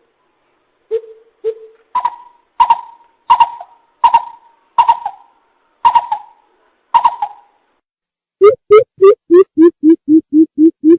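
Coucal (bìm bịp) hooting, the lure call used to draw in wild birds. It gives a couple of low hoots, then a run of about seven higher, louder hoots, then a quick series of deep booming hoots at about three a second near the end.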